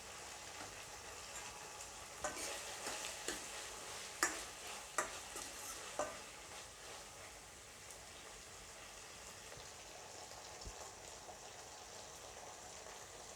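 Small onions and tomato sizzling in sesame oil in a kadai. The sizzle is steady, with a spoon stirring and knocking against the pan several times between about two and six seconds in.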